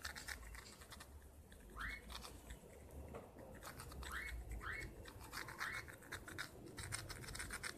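Pencil graphite scratching in quick, light back-and-forth strokes over the button contact pads of a TV remote's circuit board, shading them to restore buttons that no longer respond. A few short rising chirps come through alongside.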